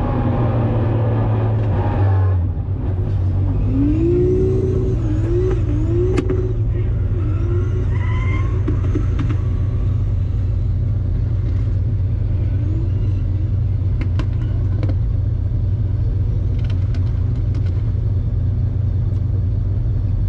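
Toyota Supra Mk4's turbocharged 2JZ-GTE straight-six heard from inside the cockpit, revving for about two seconds, then dropping back to a steady low rumble. A brief wavering tone rises and falls a few seconds in.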